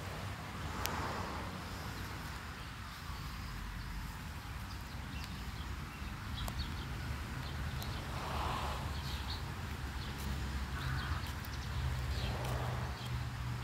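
Light rain falling on a concrete driveway, with scattered faint ticks of drops and a steady low rumble that grows somewhat stronger in the second half.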